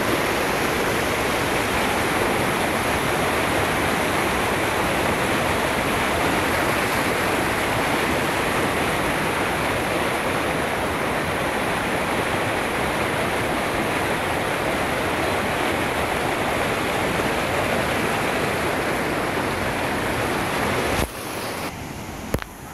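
Fast-flowing mountain stream rushing over rocks, a steady loud rush of water. It cuts off abruptly about a second before the end, leaving a much quieter background.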